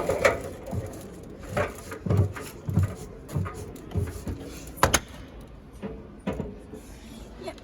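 A string of knocks, clicks and thumps from display washing machines being handled: doors and detergent drawers opened, shut and knocked, roughly one every half second to a second, with a sharp loud click just before the five-second mark.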